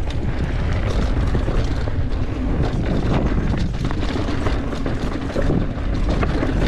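Mountain bike rolling down rocky dirt singletrack: wind rushing over the rider's camera microphone, tyres rumbling over dirt and rock, and many small clicks and rattles from the bike as it hits the bumps.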